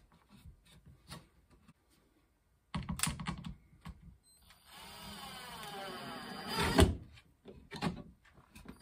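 Cordless drill driving a screw through a wooden holder into the wall. A short burst comes about three seconds in, then a longer run with a shifting motor whine that ends in a sharp knock about seven seconds in. Light handling clicks come in between.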